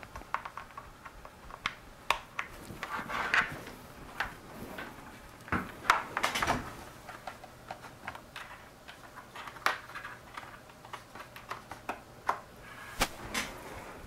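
Scattered sharp clicks and light knocks from a computer mouse being clicked and moved on a desk, with a couple of short rustles of handling.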